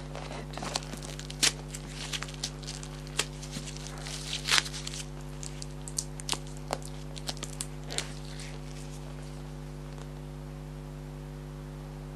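Handling noise from a new black boot stuffed with tissue paper: rustling, light taps and scattered clicks over the first eight or so seconds, then stillness. A steady low electrical hum runs underneath throughout.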